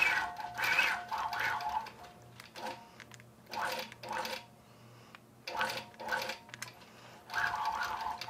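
Longarm quilting machine stitching in short runs, its motor whining at a steady pitch, stopping and starting with quieter pauses between runs.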